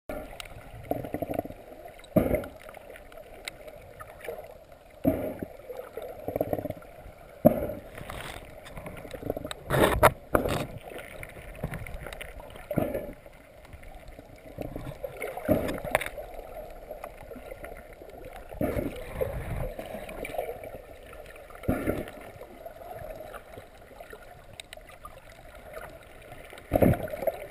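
Shallow surf over a pebble and rock bottom heard underwater: muffled, continuous water movement with irregular knocks and surges, the loudest about ten seconds in and near the end.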